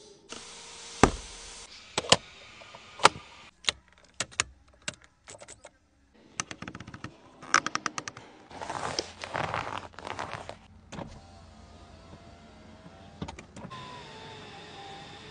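A string of sharp clicks and knocks, then a couple of seconds of rushing hiss, and over the last few seconds the steady whine of a car's electric window motor.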